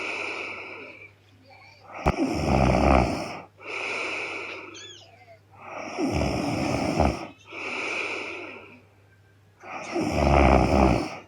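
A young woman snoring loudly in her sleep: three loud snores about four seconds apart, each followed by a quieter breath.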